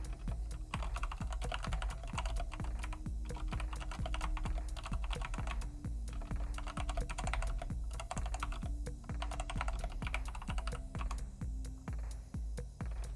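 Typing on a Redragon K551 Vara mechanical keyboard with Outemu Red linear (non-clicky) switches in a metal-plate build: a fast, continuous clatter of keystrokes broken by a few short pauses.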